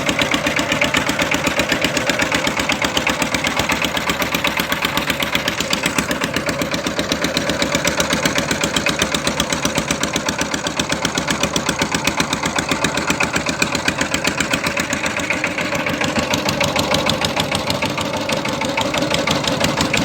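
A motorboat's engine running steadily, with a rapid, even chugging.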